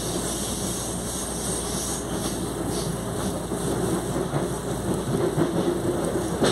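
Running noise of a CPTM Line 11-Coral electric commuter train heard inside the car: a steady rumble of wheels on rails, with more frequent clicks and knocks from about four seconds in.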